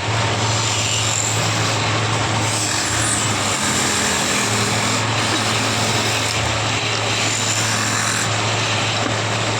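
Electric woodworking machine running steadily, a constant motor hum under an even whirring noise, with no clear cuts or breaks.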